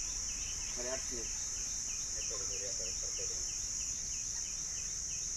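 Insects droning steadily at a high pitch, with a short chirp repeating several times a second over it.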